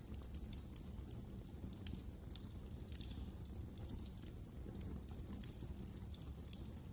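Wood fire burning in a fireplace, crackling with many small irregular pops and snaps over a steady low rumble of the flames.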